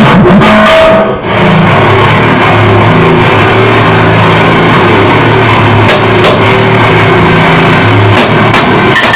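Harsh noise music: a loud, dense wall of distorted sound with shifting low tones beneath it. It dips briefly about a second in, and a few sharp clicks come through near the end.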